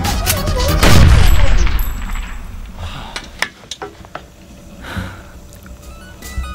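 A loud blast about a second in that dies away over a second or so, followed by a few scattered sharp clicks and clinks.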